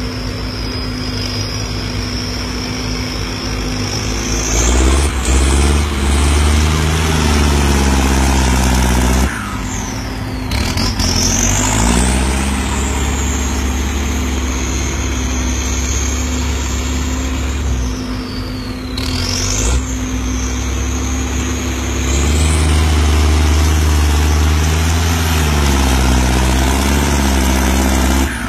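Turbocharged diesel tractor engine working under load as it pushes soil, with a high turbo whistle that climbs as the engine pulls and drops sharply each time it lets off, three times over.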